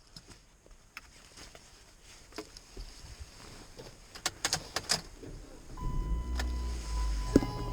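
A few scattered clicks and light rattles, with a short cluster of sharper clicks about two-thirds of the way through. Background music with held tones and a bass line comes in near the end.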